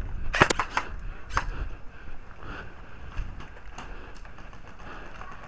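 Airsoft gun firing a quick string of sharp shots about half a second in, then one more shot a second later, followed by a few faint scattered clicks.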